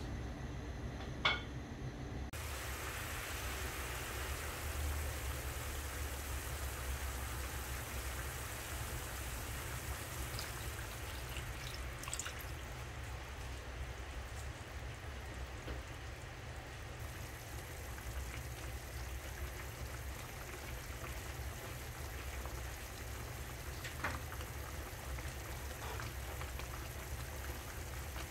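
Chicken pieces cooking in a pan of coconut-milk sauce, a steady bubbling simmer that sets in about two seconds in, over a low steady hum, with a few light clicks.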